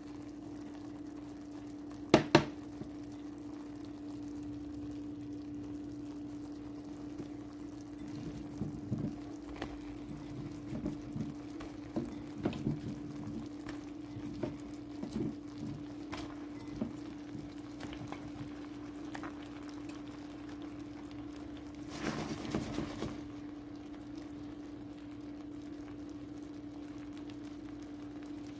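Chicken adobo simmering in a metal wok over a steady low hum, with a sharp double knock about two seconds in. A run of soft knocks follows as potato chunks are dropped into the sauce, and there is a brief rustle near the end.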